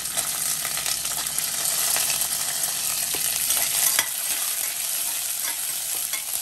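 Chopped onions sizzling as they hit hot sesame oil in a pressure cooker, then stirred with a steel ladle: a steady frying hiss, louder in the middle, with a few sharp clicks of the ladle against the pot.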